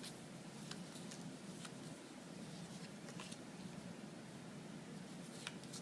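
Faint soft clicks and rustle of trading cards being handled and flipped through, a few light ticks spread over a steady low room hiss.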